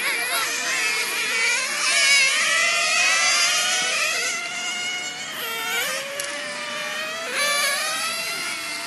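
Several 1/10-scale nitro RC touring car engines running at high revs around a track, their high-pitched whine overlapping and rising and falling in pitch as the cars accelerate and brake.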